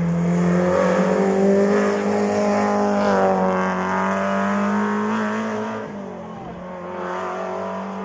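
Rally car engine running hard at high revs as the car passes and pulls away up the stage, the note holding steady and loudest about a second and a half in. About six seconds in it drops in pitch and level as the car moves off, then picks up again.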